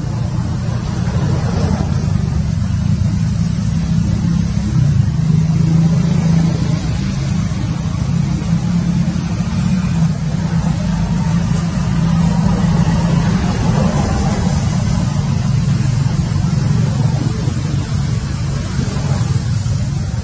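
A motor vehicle engine running steadily, a low unbroken hum.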